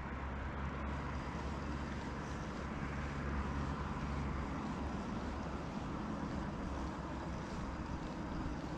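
Steady low drone of a distant engine over a soft, even hiss.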